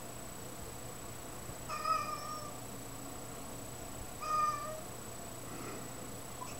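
Domestic cat giving two short meows about two and a half seconds apart, the calls of a cat fixed on a butterfly it is watching on the wall.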